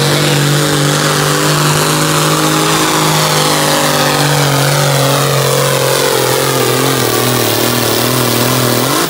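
Allis-Chalmers D21 modified pulling tractor's diesel engine running flat out under heavy load as it drags a weight-transfer sled. The pitch sags slowly over the pull, then rises briefly at the very end.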